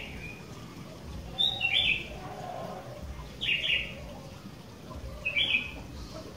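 Sooty-headed bulbul (kutilang) calling: three short, bright phrases, about two seconds apart.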